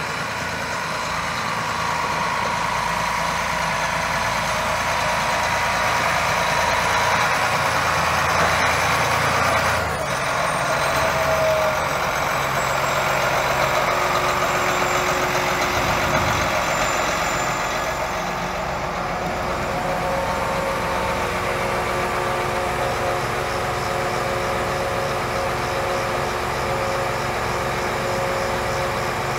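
Large John Deere row-crop tractor's diesel engine running, louder for the first ten seconds or so, then idling steadily.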